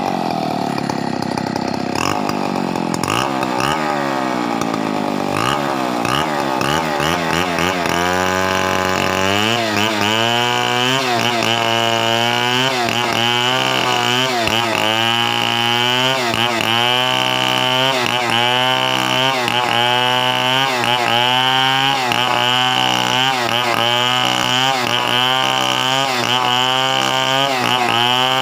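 Two-stroke chainsaw engine, revved up and down during the first several seconds. It then runs steadily at high speed, its pitch wavering about once a second.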